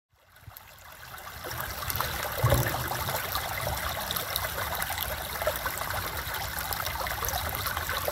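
Shallow stream rippling and trickling over stones, fading in over the first two seconds, with one brief low thump about two and a half seconds in.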